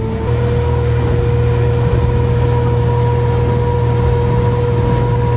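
Honda 250 hp four-stroke V6 outboard driving the boat at speed: a steady engine drone with a whine on top that steps up slightly in pitch just after the start, over a steady rush of water and wind.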